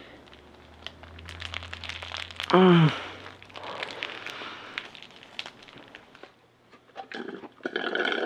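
Paper burger wrapper crinkling and crackling while a burger is eaten, with a short loud vocal groan falling in pitch about two and a half seconds in. Near the end, a drink is sucked up through a straw with a noisy slurp.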